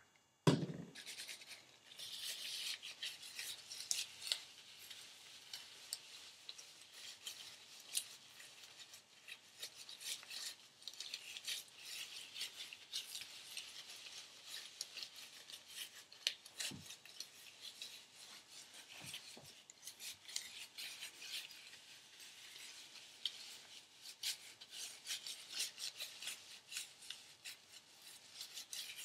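Hands working a protein treatment through damp curly hair close to the microphone: a continuous crackling, rubbing rustle full of small clicks. A single knock sounds just after the start.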